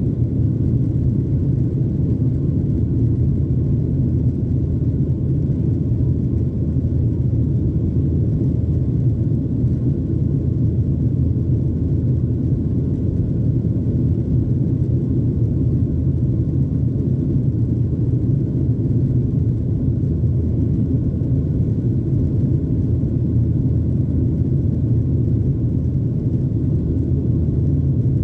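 Steady low cabin rumble of a Boeing 737-900 in its climb after takeoff, from its CFM56-7B engines and the air rushing past the airframe, heard from inside the cabin.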